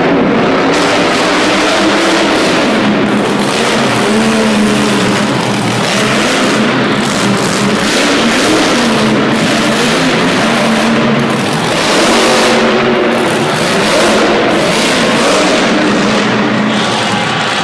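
Several monster truck engines, supercharged big-block V8s, running and revving at once, their pitch rising and falling over and over as the trucks drive and jump.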